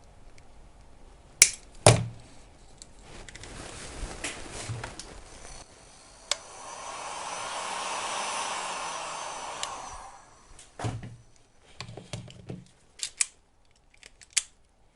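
Hot-air heat gun blowing for about three and a half seconds, swelling up and then fading away, likely shrinking tubing over a freshly soldered battery wire joint. Sharp clicks and knocks come before and after it, as tools and wires are handled on the bench.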